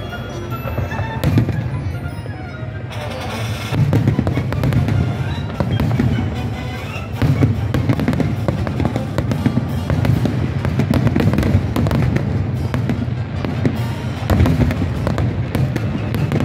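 Aerial fireworks bursting: a dense run of booms and crackles that thickens about four seconds in, with music playing underneath.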